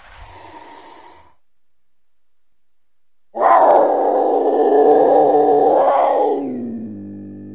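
Cougar (mountain lion) calling. A brief faint sound comes first, then after a pause a loud call of about three seconds, which falls in pitch near the end into a quieter, lower drawn-out tone.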